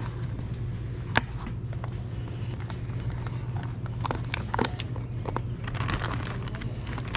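Small items being handled on a table: a sharp click about a second in, a few scattered knocks, and plastic zip-top bags crinkling near the end, over a steady low hum.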